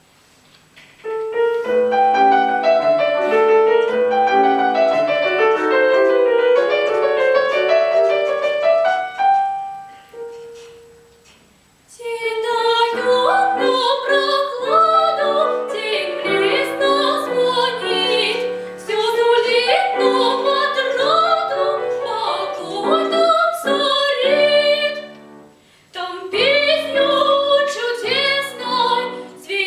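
A piano plays a short introduction. About twelve seconds in, a girl's solo voice enters, singing a classical art song over the piano accompaniment.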